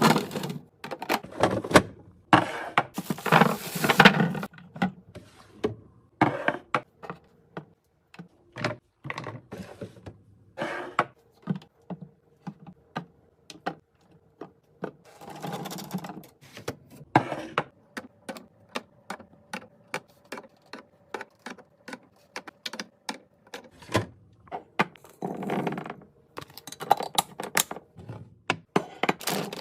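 Many quick clicks, taps and light knocks of plastic containers and packaging being handled and set into a fridge, with a few short bursts of rustling.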